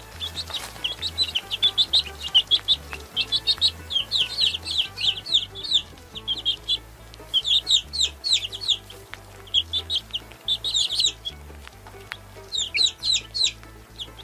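Baby chicks peeping: many quick, high, downward-sliding peeps in runs, with short pauses about six and twelve seconds in.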